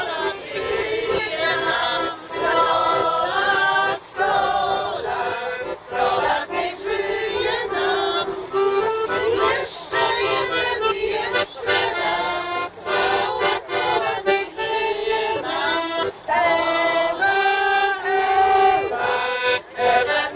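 Piano accordion playing a tune, with a steady bass note held under the moving melody.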